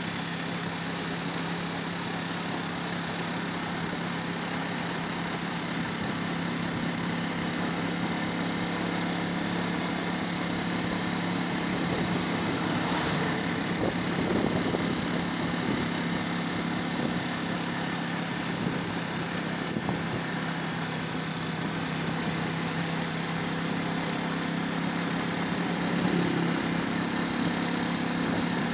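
Engine of a small road vehicle running steadily while it drives along, with constant wind and road hiss on the microphone. The engine note rises briefly near the end.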